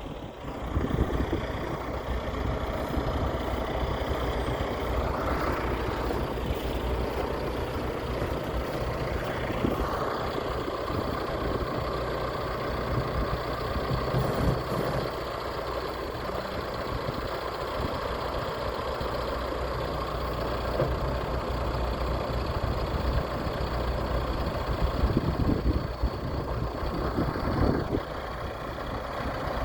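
John Deere 310SJ backhoe loader's diesel engine running steadily, with small rises in level now and then.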